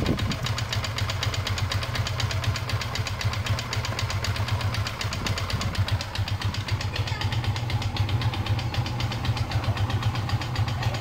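An engine idling steadily with an even, fast beat.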